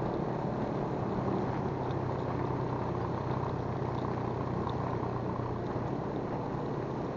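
Motorcycle engine running at a steady cruising speed, with wind and road noise from the moving bike.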